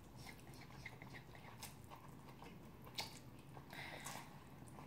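Faint wet mouth sounds of a person eating bibim naengmyeon (spicy mixed cold noodles): chewing with small smacking clicks, one sharper smack about three seconds in and a short slurp of noodles just before the four-second mark.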